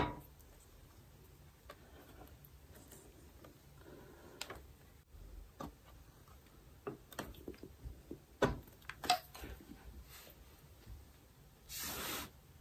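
Faint, scattered clicks and light metallic knocks from an engine side cover and its bolts being fitted by hand on a motorcycle, with a brief hiss near the end.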